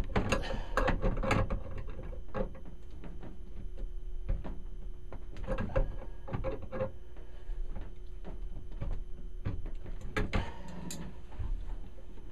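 Channel-lock pliers clicking and scraping on a brass water hammer arrestor fitting as it is tightened onto the washing machine's hot water valve. The clicks come in three clusters, near the start, about halfway and near the end, with single ticks between them, over a low steady hum.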